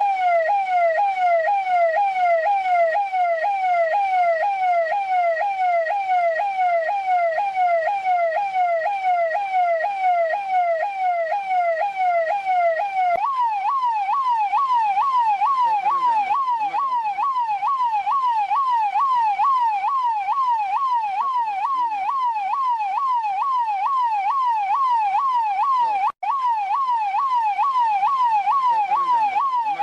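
Russian police car siren sounding a fast, evenly repeating sweep, about three cycles a second, that jumps to a higher pitch about halfway through. It cuts out for a split second near the end.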